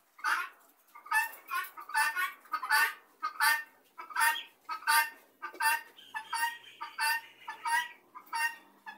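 Helmeted guinea fowl calling in a steady rhythmic series of short, rasping calls, about two a second.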